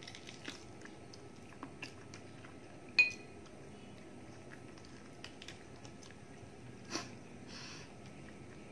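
Eating sounds as chicken-feet adobo is nibbled and sucked off the bone by hand: small mouth clicks and smacks. There is one sharp, ringing clink of a dish about three seconds in, and a softer tick followed by a brief soft hiss near the end.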